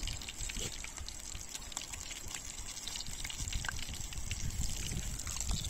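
Steady rush of river water flowing, with small trickles and splashes.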